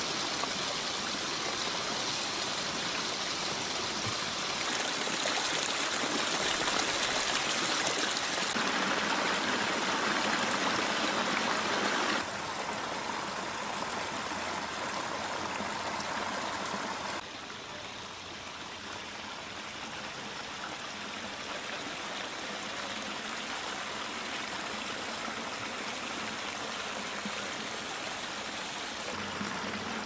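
Water of a pondless waterfall splashing and rushing over boulders down a rocky stream bed, a steady rush of noise. Its loudness changes abruptly a few times, dropping clearly about 12 and 17 seconds in.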